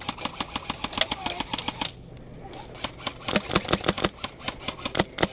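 Airsoft guns firing rapid strings of sharp shots, with a lull of about a second near the middle before the firing picks up again.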